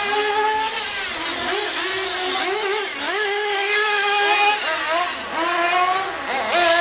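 Small nitro glow engines of radio-controlled buggies running hard, their high pitch rising and falling with the throttle as they lap. At times two engines are heard at once at different pitches.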